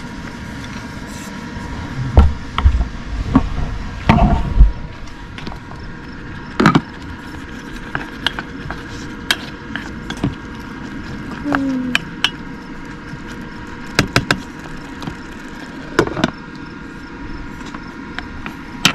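Scattered knocks, clicks and a few heavier thumps of things being handled and set down, with a couple of short squeaks, over a steady hum.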